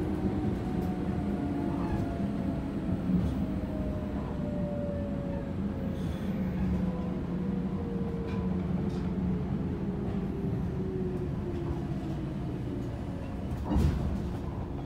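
117 series electric train's traction motors whining, the pitch falling slowly as the train slows, over rumbling running noise. A single clunk near the end as the train comes to a stop.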